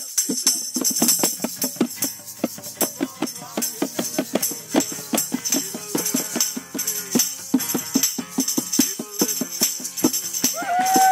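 Music with a fast, steady percussion beat over pitched instruments; a single note is held for about a second near the end.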